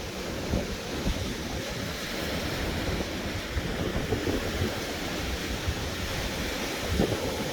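Blizzard wind gusting and buffeting the phone's microphone as a low rumble over a steady rush, with a stronger gust near the end.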